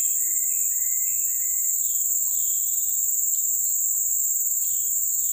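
Steady, high-pitched drone of insects, with short bird chirps scattered through it.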